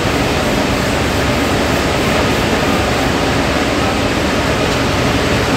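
Tea-processing machinery running in a factory: a loud, steady rushing noise from fans and machines, with a faint low hum under it.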